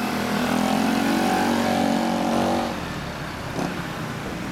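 Motor scooter engine accelerating away, its pitch rising for about two and a half seconds before it fades into street traffic noise.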